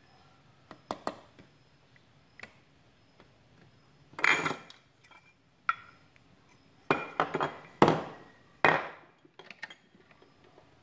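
Clear glass incandescent light bulbs in lamp holders clinking and knocking as they are handled: a string of separate clinks and clacks with quiet between, the loudest in the second half.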